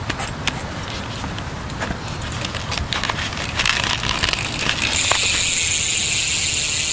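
BMX hub with its wheel spun by hand: light, scattered freewheel ticks, then from about five seconds in a steady high-pitched whir as the wheel spins freely. The rider calls the hub very quiet.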